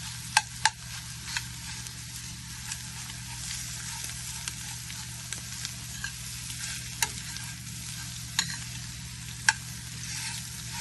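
Food frying in hot oil in a pan, a steady sizzle. Several sharp clicks of a utensil striking the pan come at irregular intervals, two of them close together near the start.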